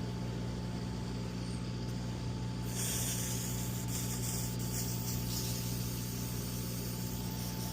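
Hand-pump sprayer held upside down, hissing steadily as its pressure is vented out so it can be refilled. The hiss turns brighter about three seconds in, over a steady machinery hum.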